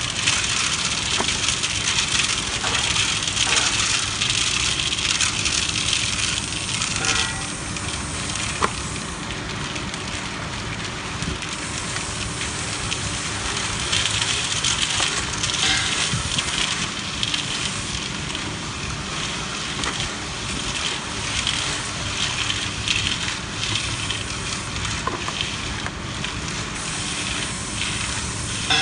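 Tilting concrete mixer, driven by a 1 hp Mitsubishi electric motor, running with its drum turning and tumbling a gritty load of sand in a steady scraping hiss over a low hum.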